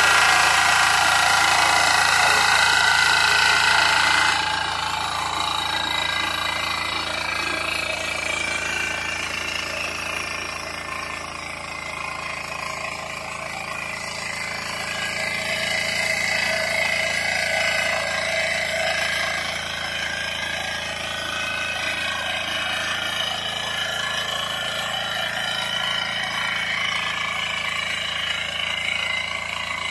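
Kisankraft KK-IC-350D mini power tiller's small diesel engine running steadily under load as its rotary tines till the soil, loudest for the first four seconds.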